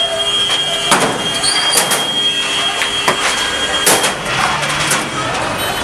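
Irregular sharp knocks and bangs, several a second at times, over a dense noisy street background with a faint steady high tone.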